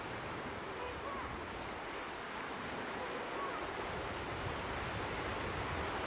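Sea surf washing onto the beach in a steady hiss, with wind buffeting the microphone.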